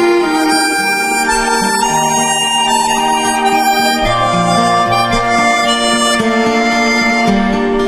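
Instrumental background music of held notes in chords that change every second or so.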